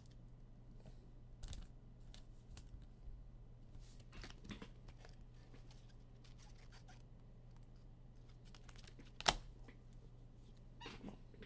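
Trading cards and pack wrappers being handled: soft rustling, tearing and faint clicks, with one sharp click about nine seconds in, over a low steady hum.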